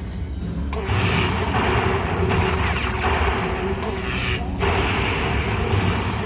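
Lightning Link slot machine playing loud booming, crackling sound effects in several surges during its hold-and-spin bonus.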